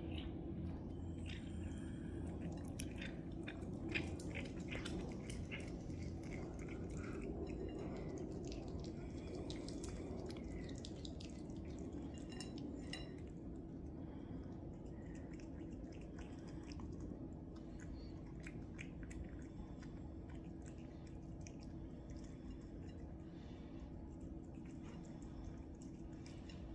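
Two cats chewing raw chicken frames: irregular wet crunches and clicks of teeth on bone, busiest in the first half. A steady low hum runs underneath.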